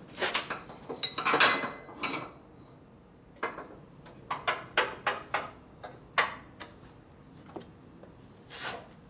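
A metal workpiece being handled and set up at a bandsaw: scraping and rubbing in the first two seconds, then a run of separate sharp clicks and knocks as parts are positioned and clamped. The saw is not yet running.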